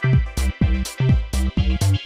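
Electronic music with a steady beat of about two beats a second over a pulsing bass line.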